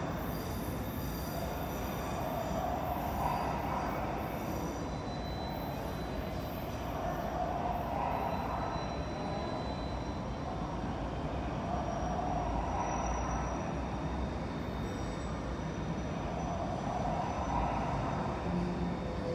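Taipei MRT Circular Line train running on the curved elevated track: a steady rumble of steel wheels on rail that swells and eases every few seconds, with faint high wheel squeal.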